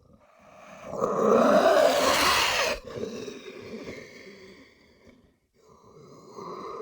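Creature sound effect for Megalania, a giant prehistoric monitor lizard: a loud, breathy call swells for about two seconds and breaks off suddenly, then trails away. A second, quieter call follows near the end.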